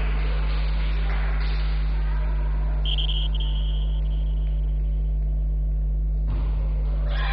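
Steady low electrical hum dominating the recording, over faint background noise, with a short high steady tone of under half a second about three seconds in.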